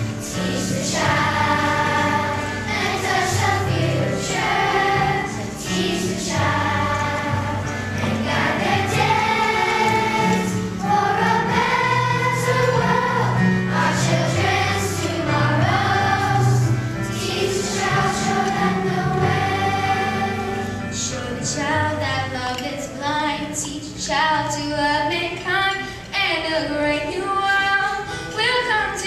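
Children's choir singing a song over instrumental accompaniment with a steady bass line.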